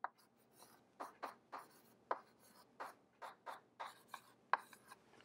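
Chalk writing on a chalkboard: about a dozen short scratching strokes and taps as numbers are chalked up, one at the start and then a steady run after a pause of about a second.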